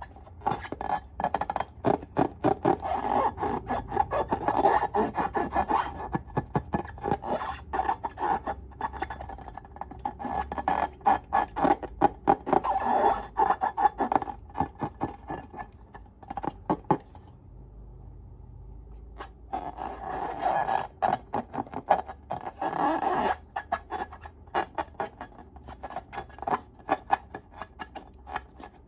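Slime being worked and squished by hand: a dense run of quick wet clicks and crackles, with a short pause about two-thirds of the way in.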